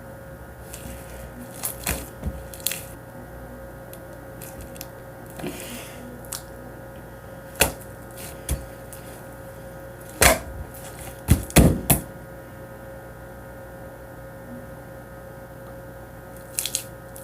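Slime being kneaded and stretched by hand, making scattered sharp clicks and pops, the loudest cluster a little past the middle, over a steady faint hum.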